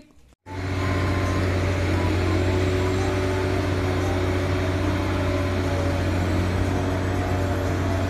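Diesel engine of a large telescopic crawler crane running steadily, a deep even hum with a few steady higher tones over it. It comes in about half a second in.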